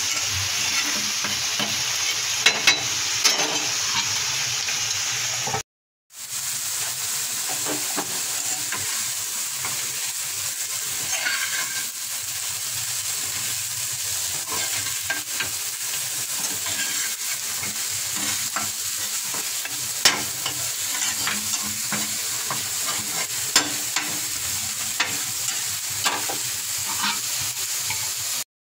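Radish greens and shrimp frying in oil in a frying pan: a steady sizzle while a spatula stirs and scrapes them, with occasional sharp taps of the spatula on the pan. The sound drops out briefly about six seconds in.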